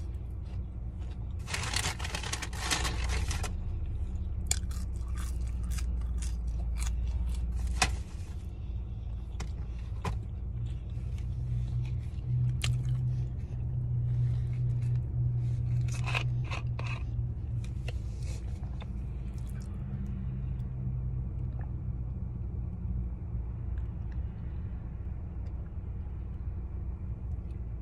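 Close-up chewing and mouth sounds of a person eating fries, with scattered crackles and a brief rustle about two seconds in, over a steady low rumble inside a car.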